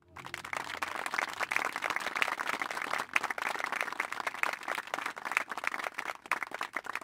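Applause: many hands clapping in a dense, steady patter that starts suddenly.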